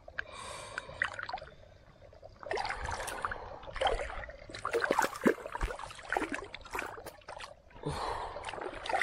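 Shallow pond water splashing and sloshing in irregular bursts as a large common carp broodfish is grabbed and held by hand in the water, busier after the first couple of seconds.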